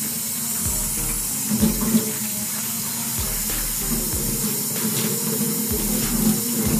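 Tap water running steadily from a faucet into a utility sink, splashing over hair that gloved hands are rinsing under the stream.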